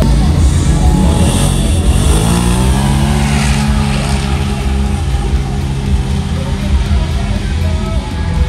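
Side-by-side UTV engines revving hard as two machines race down a dirt drag strip. The engine note climbs over the first few seconds, then holds steady at high revs.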